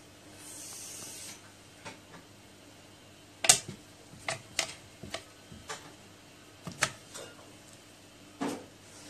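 A cat batting at a fluffy wand toy in a plywood cat bed: a short soft rustle, then a string of irregular sharp taps and knocks of paws and toy against the wood, the loudest about three and a half seconds in.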